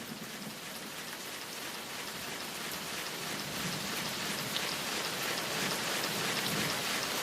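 Steady rain falling during a thunderstorm, an even hiss with occasional drop ticks, growing gradually louder.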